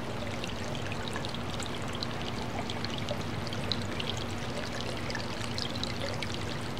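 Water from a newly switched-on pump pouring out of a biofall and trickling and splashing down a rock-lined waterfall stream into a small pool; the splashing and dribbling grow busier after a few seconds as the flow reaches down the stream bed. A steady low hum runs underneath.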